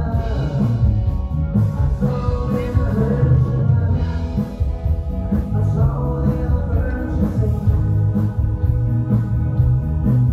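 Live band playing upbeat rock-style music with singing, electric guitars and keyboard over a strong bass line and a steady beat.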